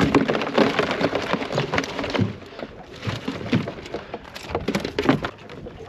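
A round collapsible crab pot being handled in a boat. Its net and frame rustle, scrape and knock in a run of irregular clicks and clatters, busiest in the first couple of seconds, then a few scattered knocks.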